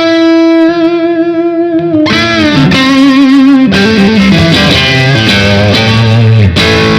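Electric guitar played through a Demonfx Prince of Sound overdrive pedal, a clone of the Analog Man Prince of Tone, with the pedal's volume turned all the way up into the amp. It plays very loud: one held note for about two seconds, then bent notes and a run of overdriven chords.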